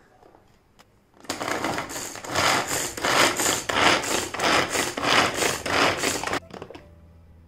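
Manual hand chopper chopping onion pieces: a rapid, even rattle of repeated strokes, about three a second. It starts about a second in and stops abruptly a second before the end.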